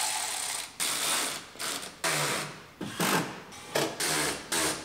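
Ratchet clicking in short, quick strokes, roughly two a second, as the fender liner screws are snugged up.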